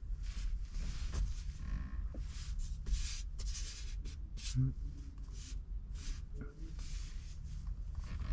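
Irregular soft rustling and rubbing, a few short scrapes a second, over a steady low rumble: handling noise.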